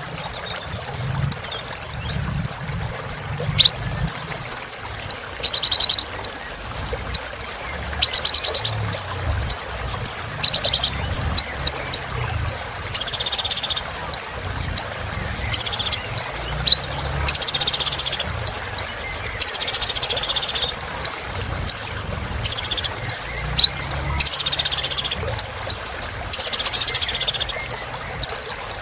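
Kolibri ninja (a sunbird) singing a long, rapid song of short, sharp, high chirps. The chirps are broken every few seconds by louder, buzzy, high trills about a second long.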